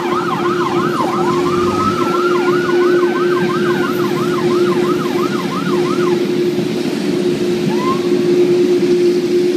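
Emergency vehicle sirens: a fast yelp, about three sweeps a second, that stops about six seconds in, overlapped for a couple of seconds by a slower rising wail, over a steady low hum.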